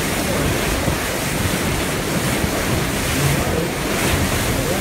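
Steady wind buffeting the microphone, mixed with water rushing past a boat out on the river.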